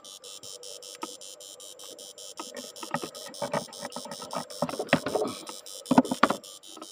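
Electrofishing inverter buzzing with rapid, evenly spaced electrical ticks over a steady hum. From about three seconds in come irregular wooden knocks and clatter, loudest near six seconds, as the landing net and fish are handled in the wooden boat.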